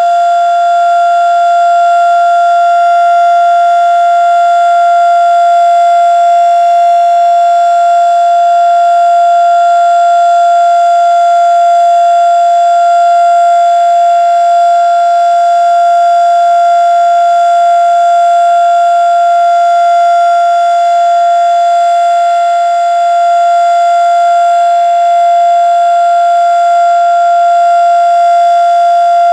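Federal Signal Model 3 single-tone outdoor warning siren sounding the Alert signal: one loud, steady tone held at an unchanging pitch.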